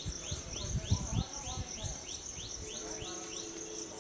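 Outdoor ambience: a steady high insect drone with a bird giving a rapid series of short rising notes, about three a second. A couple of low thumps come about a second in.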